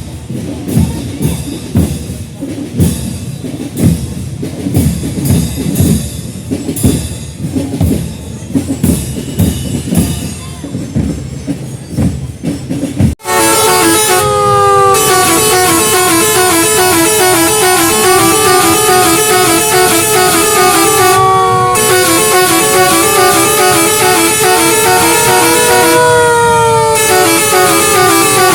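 For the first half, a loud jumble of uneven beats and noise. After a sudden cut, a fire truck's telolet multi-tone air horn plays a melody: several tones glide up and down together over a rapid chopped beeping, loud and unbroken to the end.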